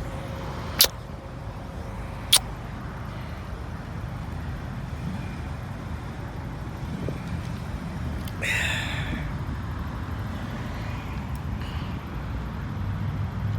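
Road traffic going by: a steady low rumble with a hissing swell about eight seconds in, like a car passing. Two sharp clicks in the first few seconds.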